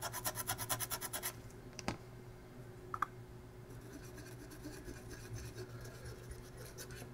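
Fiberglass scratch pen scrubbing corrosion off a circuit board's copper traces in rapid, even strokes that stop a little over a second in. A single click follows, then only faint rubbing. The corrosion comes from a leaked NiCad battery.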